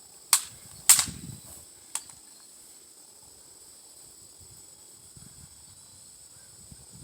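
Three sharp cracks: one just after the start, the loudest about a second in, and a smaller one about two seconds in.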